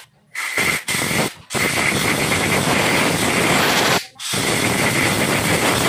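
Compressed-air blow gun blasting air through carburetor passages to clear out dirt: two short hissing blasts, then two long ones with a faint whistle.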